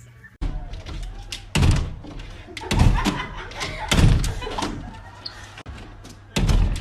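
Four heavy, dull thumps, a second or more apart, the last one near the end.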